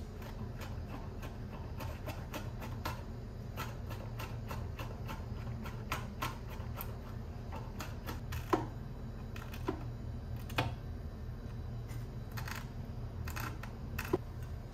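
Cleaver chopping garlic on a wooden cutting board: a long run of quick, irregular knocks of the blade on the wood, a few of them louder, over a faint low hum.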